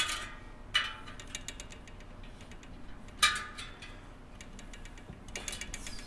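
Plastic tire lever scraping and snapping against a bicycle rim, three sharp strokes: near the start, just under a second in and about three seconds in. Light, rapid mechanical ticking sounds between them.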